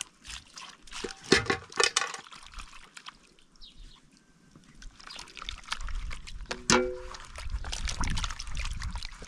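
Water poured from a plastic jerrycan splashes and trickles into a plastic bowl of tomatoes, then hands swish the tomatoes around in the water to wash them. A single sharp knock comes a little past halfway.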